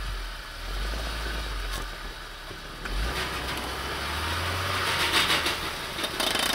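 UAZ Patriot SUV's engine pulling under load as it churns through deep snow, rising in level about four seconds in, with a hiss of spinning wheels in snow and sharp crunching clicks near the end. The driver calls the crunching the sound of the DAK locking differential: it crunches but it helps.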